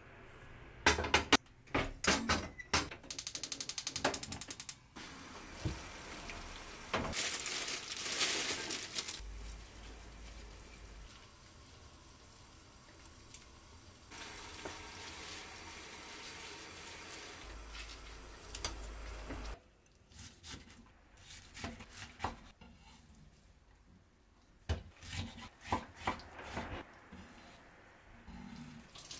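Kitchen prep: pots and utensils clinking and knocking, with stretches of steady hiss in the middle, then a knife cutting blanched greens on a wooden cutting board in short runs of sharp strokes near the end.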